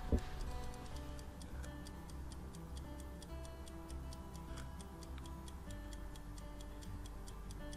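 Quick, even ticking of the Omegon Mini Track LX2's clockwork drive, several ticks a second, under soft background music, with a short thump right at the start.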